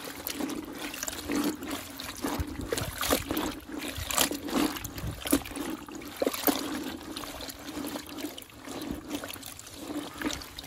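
Rubber-gloved hand squishing and kneading wet, dye-soaked fabric down into a plastic bucket of liquid dye: irregular wet squelches and small trickles and splashes.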